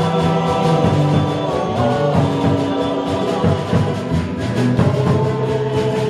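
Live band music in an instrumental passage: held notes over a steady percussive beat, with no singing.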